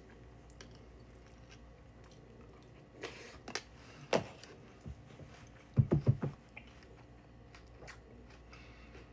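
A person eating cereal with milk close to the microphone: quiet chewing, with a few short knocks about three to four seconds in and a louder cluster of four about six seconds in.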